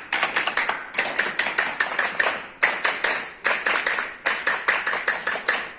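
A group of people clapping hands together in a few rounds with brief breaks, then stopping abruptly near the end.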